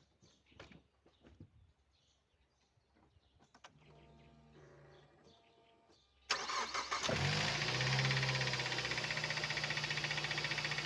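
Mazda 6 engine cold-started: the starter cranks about six seconds in, the engine catches within a second and idles with a fast, even knocking, a cold-engine knock that the owner says fades after 3–4 minutes of running. Before the start there are only faint clicks and a low hum.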